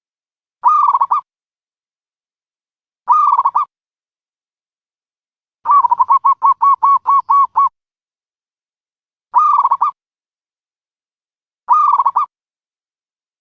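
Dove calls for a trapping lure: four short, quick rattled coos and, in the middle, one longer run of about a dozen rapid cooing notes, each call separated by a couple of seconds of silence.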